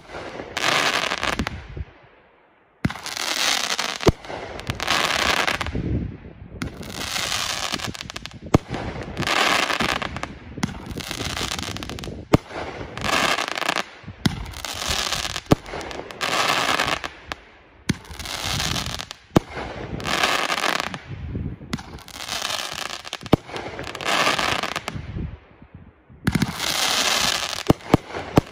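Consumer aerial firework cake firing shot after shot, roughly one every one and a half to two seconds. Each shot is a sharp bang trailed by about a second of noisy burst that fades out.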